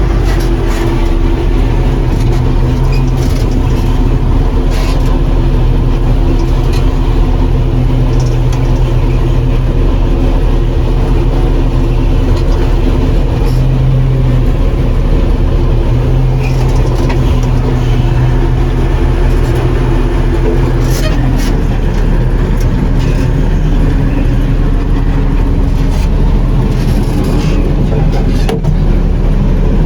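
John Deere 4400 combine's diesel engine running steadily under load, with the unloading auger emptying the grain tank of corn into a dump truck. It is a loud, even drone, and a few of its tones drop away about two-thirds of the way through.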